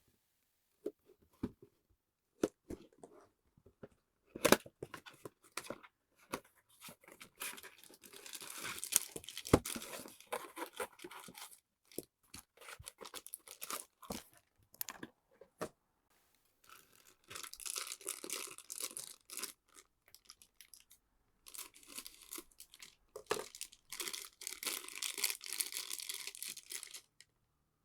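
Figure packaging being opened by hand: scattered clicks and taps, then three stretches of plastic tearing and crinkling.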